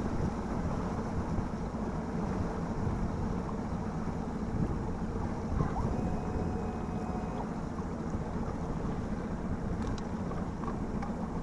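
Steady low rumble of wind on the microphone and water around a small fishing boat, with a few faint ticks.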